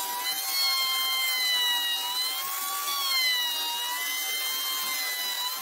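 Plunge router running with a high motor whine as its bit cuts along a curved edge of a wooden board; the pitch sags and recovers gently as the load on the bit changes.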